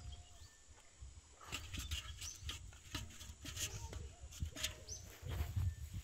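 Outdoor ambience with wind rumbling on the microphone, a run of short clicks and rustles through the middle, and a few brief high chirps near the end.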